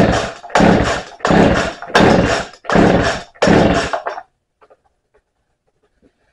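Poulan Wood Shark two-stroke chainsaw being pull-started unprimed: about six quick rips of the recoil starter cord in a row, each a short rasp, stopping about four seconds in. The engine does not catch.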